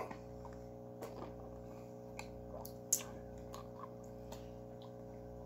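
Faint steady hum of several held tones, with a few soft scattered clicks and one sharper click about three seconds in.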